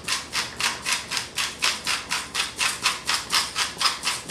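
Quick, even scraping strokes, about four a second, from a utensil stirring mashed potatoes in a glass mixing bowl.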